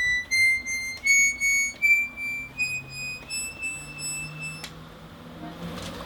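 Bayan's right-hand keyboard sounding single high reed notes one after another, climbing stepwise, each about two-thirds of a second with a key click between; the last note is held longer and stops with a click a little before the end. The freshly repaired and tuned instrument is being checked note by note.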